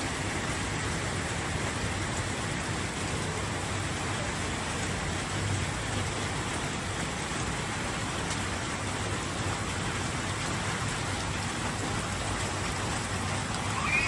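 Heavy rain falling steadily. A short high call breaks in near the end.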